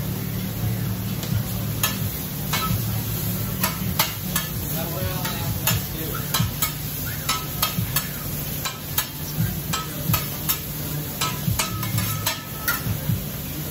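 Cubed steak sizzling on a hot steel hibachi griddle while a metal spatula and fork clack against the griddle plate, turning the meat, with irregular sharp clicks about one or two a second. A steady low hum runs underneath.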